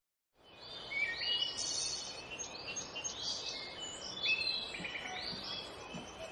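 Several birds chirping and singing, short overlapping whistled notes over a faint, even outdoor background hiss, beginning about half a second in.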